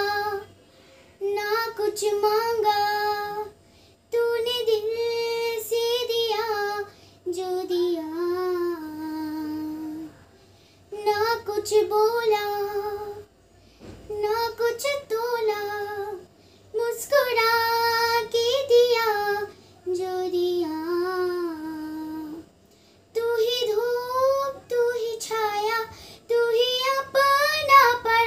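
A young girl singing solo and unaccompanied, in phrases of a few seconds each, with short pauses between them.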